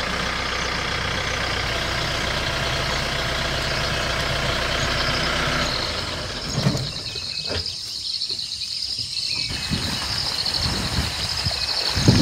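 A vehicle engine running steadily, which cuts out about six seconds in. After that, crickets chirp in a steady pulsing chorus, with a few low thumps.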